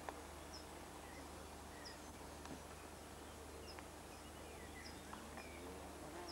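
Faint outdoor ambience in which a small bird repeats a short, high chirp every second or two, over a low steady hum.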